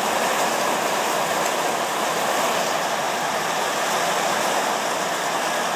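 Heavy rain pouring down in a thunderstorm, a steady, even hiss.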